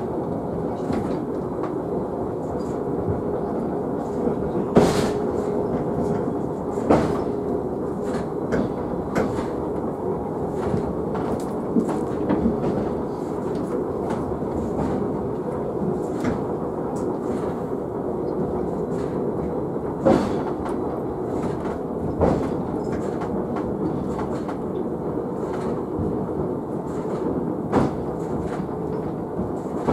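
Sakamoto Cable car running downhill on its rails: a steady rumble of the wheels and running gear with a low held hum. Sharp knocks and clacks come now and then, the loudest about five seconds in.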